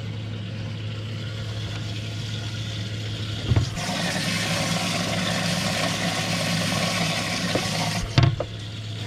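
Boat livewell pump running with a steady hum; about four seconds in, water rushes into the well for around four seconds, with a thump where the rush starts and another where it stops. The pump is freshening the water for the bass just put in the well.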